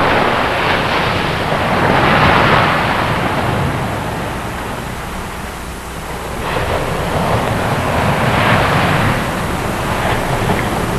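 Ocean surf washing in. The sound swells about two seconds in, eases to a lull in the middle, then swells again.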